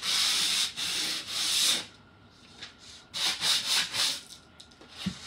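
A sanding block rubbed by hand over the chalk-painted edge of a wooden tray: scratchy back-and-forth strokes in two runs, with a pause of about a second near the middle.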